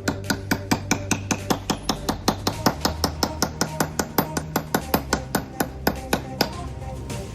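SALI hand saw sawing fast through wood set with large nails, with a sharp click on every stroke at about four to five a second, stopping about a second before the end. Background music plays underneath.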